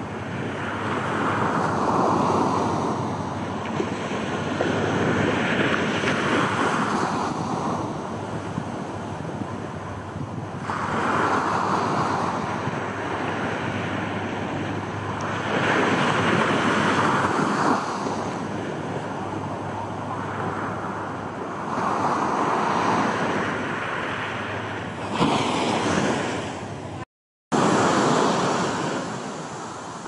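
Small waves breaking and washing up a sandy beach, the surf swelling and easing about every five seconds, with wind buffeting the microphone. The sound cuts out for a moment near the end.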